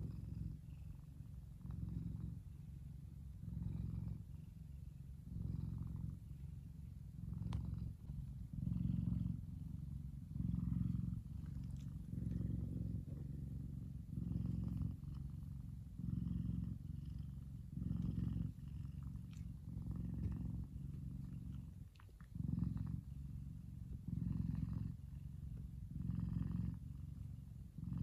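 F2 Savannah cat purring while being scratched, a low steady purr that swells and eases with each breath, about every two seconds.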